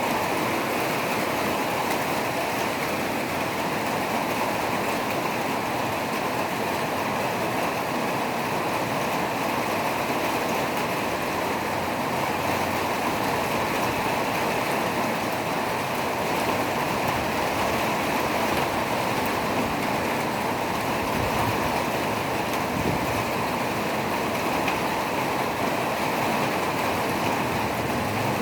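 Steady rushing water, an even hiss-like wash that holds at the same level throughout.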